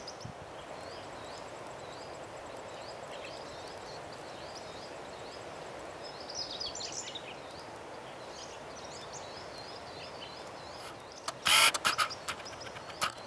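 Outdoor ambience: a steady hiss with small birds chirping over and over in short high notes, with a busier flurry of calls about halfway through. Near the end come a few loud, sharp knocks.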